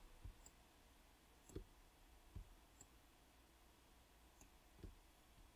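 Near silence, with a few faint, scattered computer mouse clicks as the node view is being moved around.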